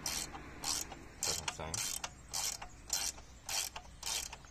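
Ratchet wrench clicking in short repeated strokes, about two a second, as it turns a bolt on an aluminium motorcycle carrier.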